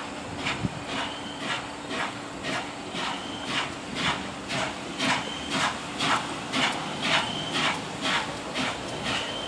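Steam locomotive working under steam, its exhaust chuffing in even beats about two a second and getting louder as it approaches.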